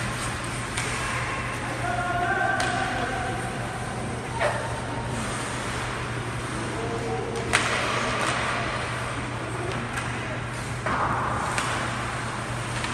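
Ice hockey game in an arena: skates scraping the ice, several sharp clacks of sticks and puck, and brief shouts from players, over a steady low hum.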